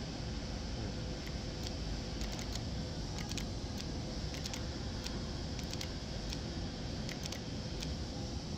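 Steady workshop background noise with scattered faint, light clicks at irregular intervals.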